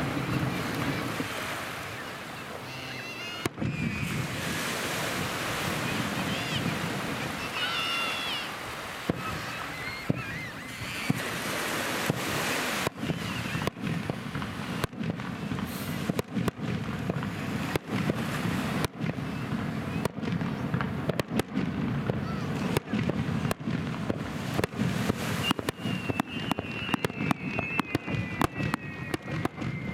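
Aerial fireworks going off: shells bursting with sharp bangs, sparse at first and then coming thick and fast with crackling through the second half. Surf washing on the shore underneath.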